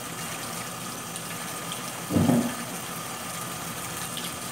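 Kitchen tap running steadily, its water splashing over small green citrus fruit being rubbed and rinsed by hand. A brief louder low bump about two seconds in.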